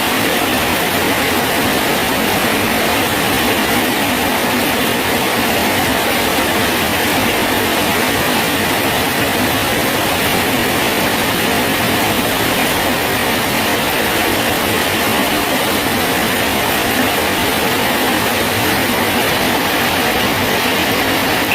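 Steady rain falling on a bridge: an even, unbroken hiss.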